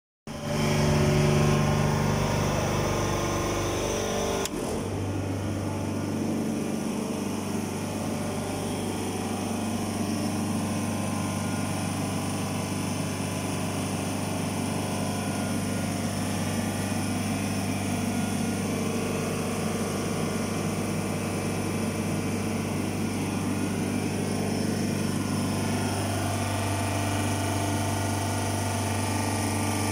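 Compressor of a York Millennium unit running with a steady mechanical hum. The pitch of the hum shifts abruptly about four and a half seconds in, then holds steady.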